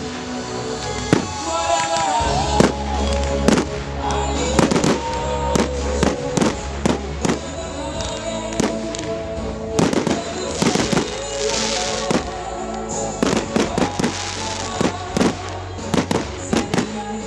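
Fireworks exploding in a rapid, irregular run of sharp bangs and crackles, several a second at times, over music with sustained pitched notes.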